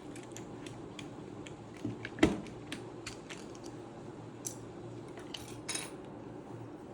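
Plastic keycaps clicking and clattering as they are handled and fitted onto a mechanical keyboard: scattered irregular clicks, with one louder knock about two seconds in.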